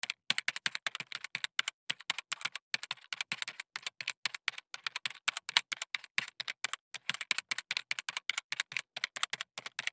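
Computer keyboard typing: quick, uneven key clicks, about five or six a second, with dead silence between them.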